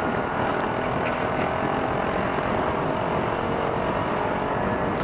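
Honda Wave underbone motorcycle running at a steady speed while being ridden, its engine holding an even pitch over continuous riding noise.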